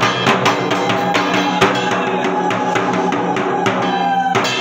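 Festive drum music: a quick, steady beat of sharp drum strokes over sustained pitched tones.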